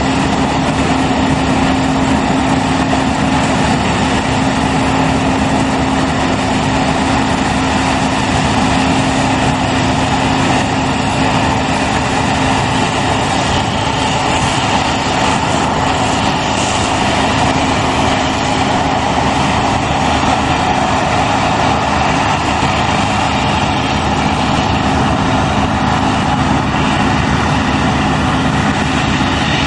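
New Holland CSX 7050 combine harvester running steadily under load while cutting and threshing grain: a constant, loud engine and machinery drone with a steady hum.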